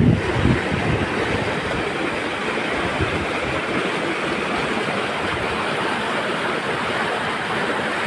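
River water rushing steadily over rocks in shallow rapids. Wind buffets the microphone with a low rumble that dies away about half a second in.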